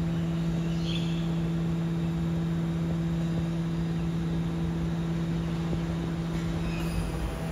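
BYD electric garbage truck giving off a steady electric hum at one low pitch with a fainter tone above it, which drops out briefly near the end. A couple of short high chirps sound over it, about a second in and again near the end.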